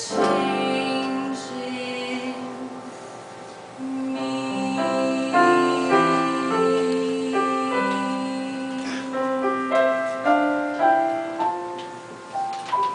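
Piano playing a slow passage of held chords and melody notes.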